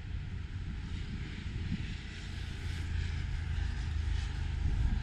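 Steady low engine drone that grows slightly louder over a few seconds.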